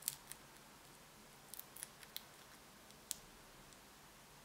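Fingertips handling a small foam 3D adhesive pad and its backing, making a handful of brief, sharp, soft clicks and crackles at irregular intervals.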